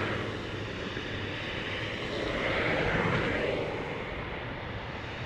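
Road traffic: a vehicle passing on a nearby road, its noise swelling to a peak about halfway through and then fading.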